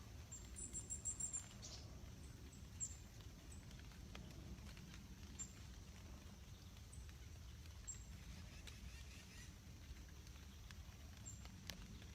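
Faint outdoor ambience: a bird gives a quick run of about six high chirps in the first two seconds, then single high chirps here and there, over a steady low background rumble.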